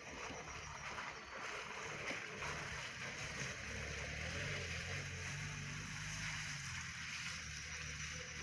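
Lada Niva's engine running steadily under load as the car drives through the mud, getting louder in the first couple of seconds, with a rushing hiss over it.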